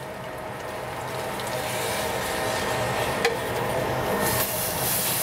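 Pink beans and their liquid poured into the cooking pot: a steady wet pouring noise that grows louder over several seconds, with a light click about three seconds in.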